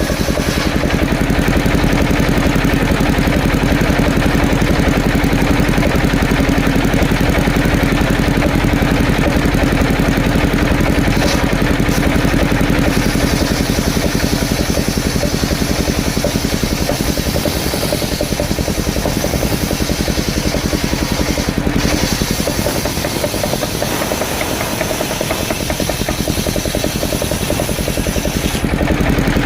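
Engine-driven portable circular sawmill running steadily and loudly.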